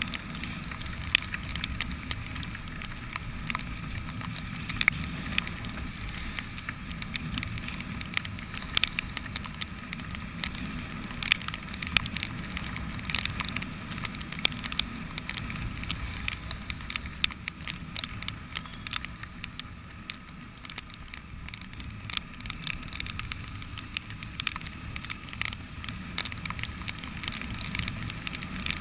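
Motorcycle riding in rain: a steady low rumble of engine and wind noise, with irregular sharp crackling ticks of raindrops striking the camera.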